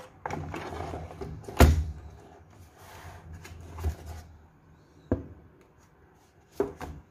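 Handling noise: an RII mechanical keyboard and its cable being shifted about in its cardboard box, with a few scattered knocks and rustles. The loudest knock is about one and a half seconds in.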